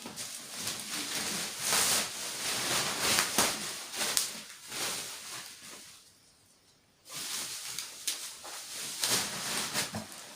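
Plastic packaging rustling and crinkling as it is handled, in irregular bursts with a few sharp crackles and a short pause about six seconds in.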